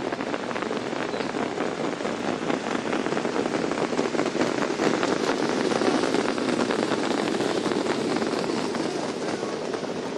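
A pack of trotters pulling sulkies on the race track: a dense, rushing clatter of many hoofbeats and wheels, swelling to its loudest about halfway through.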